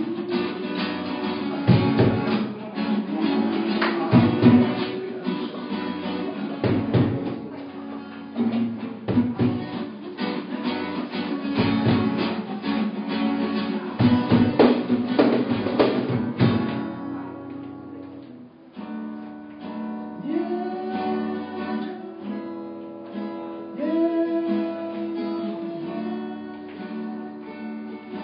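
Live acoustic band: two acoustic guitars strumming with cajón beats under singing. About seventeen seconds in the percussion drops out, leaving a quieter passage of held, gliding vocal lines over the guitars.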